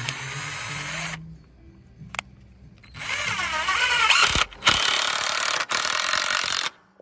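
Red Bauer 20V cordless drill driving a screw into a wooden brace. A short run of about a second comes first, then a longer run of nearly four seconds whose pitch wavers and dips as the screw bites, cut off sharply near the end.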